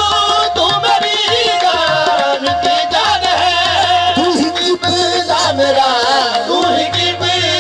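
Live qawwali music: harmoniums with tabla and singing voices, one note held steady through the first three seconds before the melody moves on.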